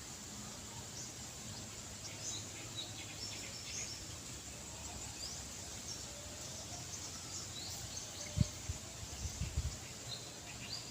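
Outdoor ambience with small birds giving scattered short, high chirps. A few low thumps come near the end.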